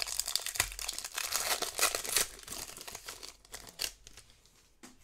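Foil Pokémon booster pack wrapper crinkling and tearing as it is opened by hand: dense crackling for about the first two seconds, then thinning to a few scattered crinkles.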